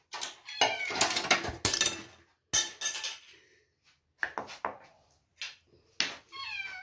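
Glass and crockery clinking and knocking as spice containers and dishes are handled, with a quick run of sharp clinks over the first three seconds and a few single clinks later.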